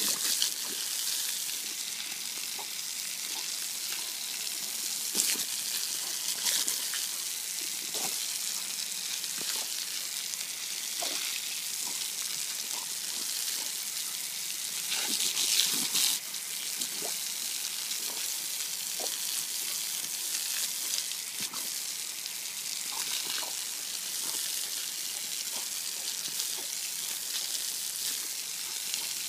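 Garden hose spraying water onto wet concrete: a steady hiss with scattered splashes as a dog bites at the jet, louder for a moment about halfway through.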